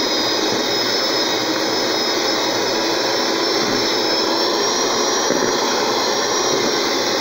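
Handheld electric mixer running steadily with a high motor whine, its beaters creaming butter, sugar and eggs into a cake batter.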